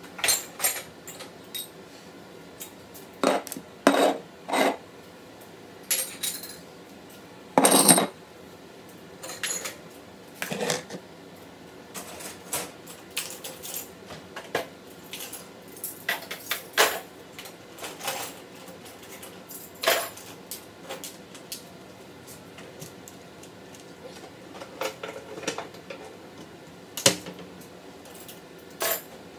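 Irregular clattering and clinking of a dishwasher's racks and the dishes in them: a long series of sharp, uneven knocks, the loudest about eight seconds in.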